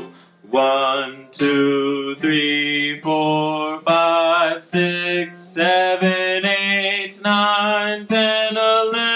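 A man sings a slow count from one to twelve, about a dozen long held notes with short breaks between them, over acoustic guitar.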